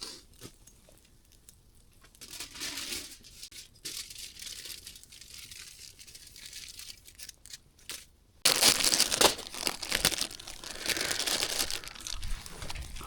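Crinkling and rustling of a sheet of material being handled, light and patchy at first, then suddenly much louder and denser about eight and a half seconds in.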